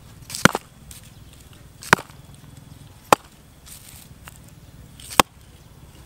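A stick striking a hard lump on the ground, four sharp single knocks spaced a second or two apart, cracking it open.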